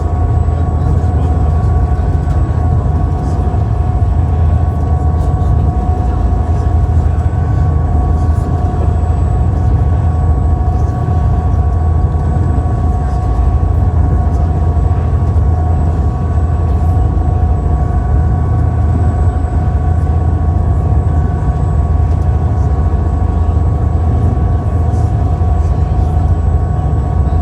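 Steady, loud low drone of a running vehicle engine, with a few constant whining tones over the rumble.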